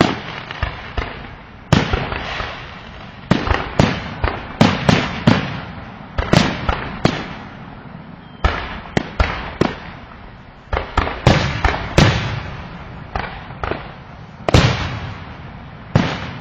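Fireworks exploding: an irregular string of sharp bangs, some coming in quick clusters, each trailing off in a rolling echo.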